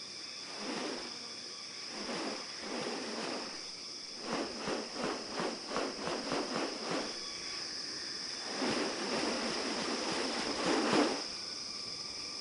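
Rainforest insects droning in a steady high band. Over it come harsh rasping sounds: a few single ones, then a quick run of about six in the middle, then two longer ones near the end.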